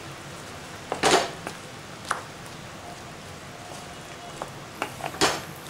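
Wooden spatula stirring sliced mushrooms in a thick coconut-milk curry, knocking and scraping against the pan a few times, loudest about a second in and again near the end.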